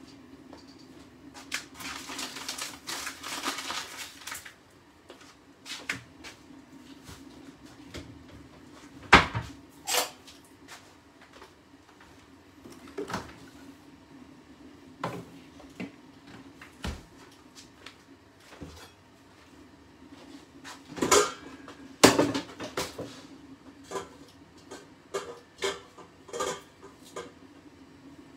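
Scattered knocks and clinks of pans, lids and utensils being handled on a kitchen hob and worktop over a steady low hum. The loudest knocks come about nine seconds in and again around twenty-one to twenty-two seconds. A soft hiss runs for a couple of seconds near the start.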